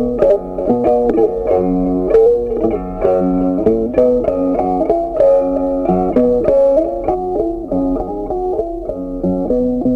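Background music: a plucked guitar tune, one note quickly after another.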